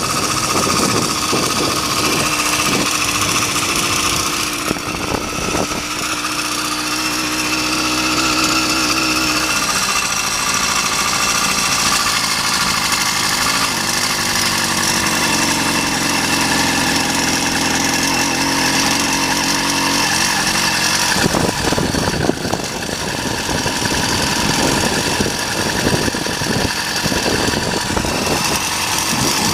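80cc two-stroke motorized-bicycle engine running with its speed rising and falling: it works hard and rough for the first few seconds and again over the last third, and settles to a steadier, lower run in the middle.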